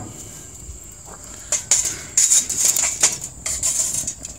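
Metal clattering and scraping on a gas grill's cast grates and the chimney starter as a smoking chunk of wood is handled onto the grill, a quick flurry of clinks from about a second and a half in until near the end.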